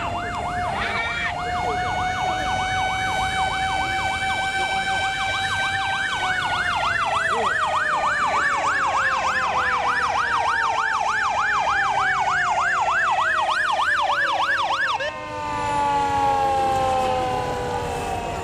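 Fire-engine sirens sounding together: a rapid yelp siren warbling about four times a second over a steadier wailing siren tone. The whole sound drops in pitch about six seconds in, and the yelp stops near the end while the wail continues, sliding lower.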